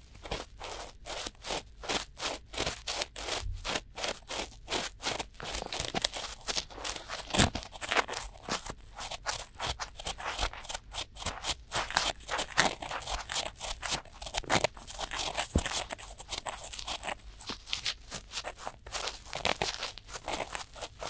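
Cotton swabs rubbing and scratching inside both silicone ears of a binaural microphone at once, in rapid crunchy strokes a few times a second.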